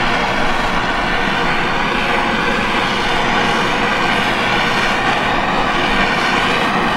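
Handheld butane torch burning with a steady rushing hiss as its flame plays over the candy.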